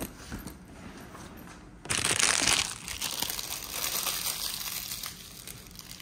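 Crinkling, rustling noise that starts suddenly about two seconds in, loudest for the first half second or so, then slowly fades.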